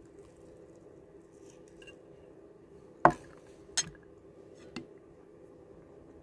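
A fork and plate being set down: three sharp clinks and knocks about a second apart, the first the loudest, over a faint steady hum.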